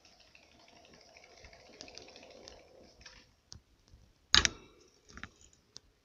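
Faint scattered clicks and taps at a hamster's wire cage, then one sharp, loud knock about four seconds in, followed by two lighter clicks.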